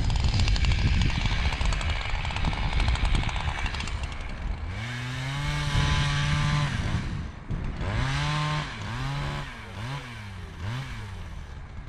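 Two-stroke chainsaw. For the first few seconds it runs with a dense, noisy sound, as when cutting. From about five seconds in it holds a steady high-revving note, then the throttle is blipped up and down several times in quick succession.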